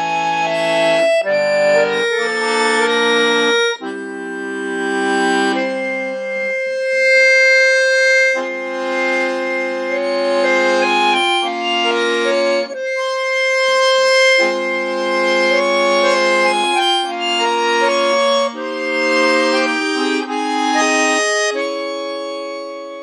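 Solo accordion playing sustained chords under a slow held melody, in phrases where the lower chords drop out briefly.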